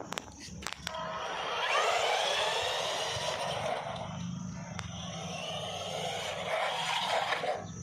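Electric motor and drivetrain of a Tygatec Super Sonic RC car whining as the car speeds up and runs fast, after a few sharp clicks.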